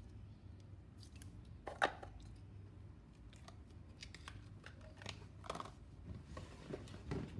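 Slime being squished and stretched by hand, with scattered small sticky clicks and crackles and one louder snap nearly two seconds in.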